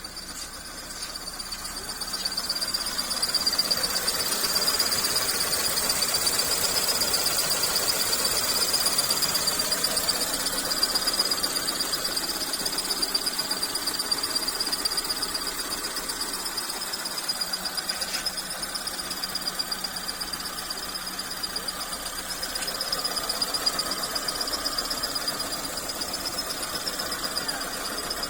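Insects trilling in a steady, high-pitched chorus with a fast pulsing buzz, over a broad background hiss that rises about two seconds in.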